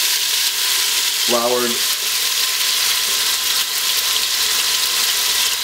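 Floured corned beef cubes sizzling in hot olive oil in a stainless steel stock pot as they sear and brown, a steady loud frying hiss.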